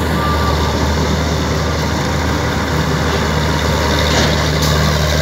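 Combine harvester running steadily as it cuts through a standing crop: a loud, deep, even engine drone.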